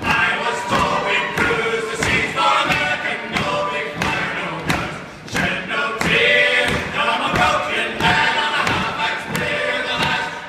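Several men's voices singing an Irish-style ditty together in chorus, with a regular thud about twice a second keeping the beat.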